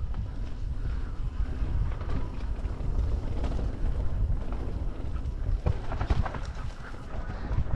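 Wind buffeting the microphone as a mountain bike rolls fast down a dirt trail, with tyres running over loose dirt and gravel and the bike rattling. A cluster of sharp rattles and knocks about six seconds in.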